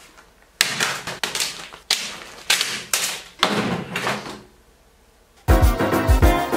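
About six sharp clattering knocks in a row, each trailing off quickly, as things are dropped onto a wooden workbench. Background music with a steady beat starts about five and a half seconds in.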